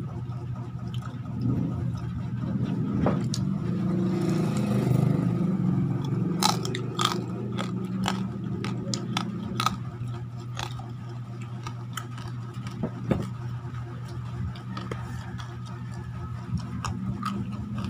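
Close-up crunching and chewing of crispy deep-fried pork belly (bagnet), with a run of sharp crackles from the crisp skin in the middle, over a steady low hum.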